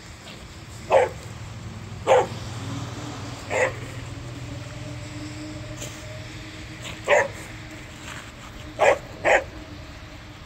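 Dog barking six single sharp barks, spaced irregularly, the last two in quick succession, over a low steady hum during the first half.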